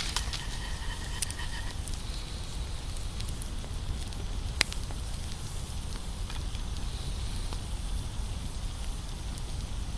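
Wood campfire crackling, with scattered sharp pops, the loudest about four and a half seconds in, over a steady low rumble.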